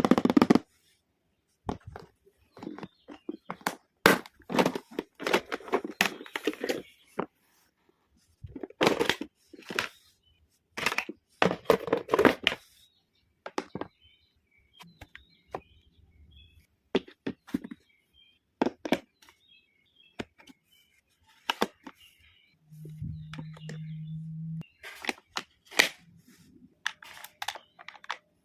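Plastic toy pieces and packaging being handled and opened: irregular sharp clicks, cracks and short tearing and crinkling noises, in bursts with pauses between. About 23 seconds in, a low steady buzz sounds for about two seconds.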